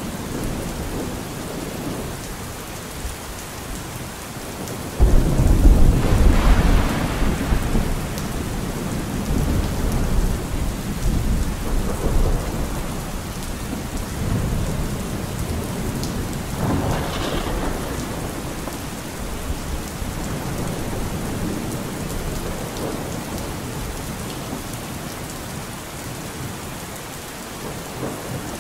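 Steady rain with thunder. A loud rumble of thunder breaks in suddenly about five seconds in and lasts a few seconds, and a second rumble comes later.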